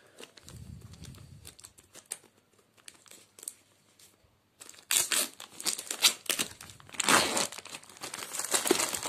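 Clear plastic shrink wrap being torn and crinkled off a paperback book. The first half is quiet with a few faint handling clicks; loud crackling starts about halfway through as the wrap is pulled away.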